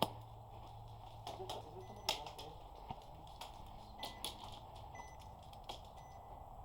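Scattered single shots from airsoft guns: sharp clicks a second or so apart, irregular and faint. A faint high beep repeats about once a second from about two seconds in.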